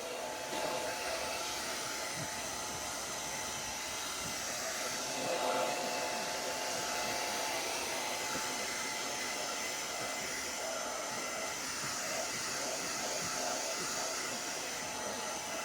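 Handheld hair dryer running steadily, blowing air with a faint steady motor whine, being used to dry hair.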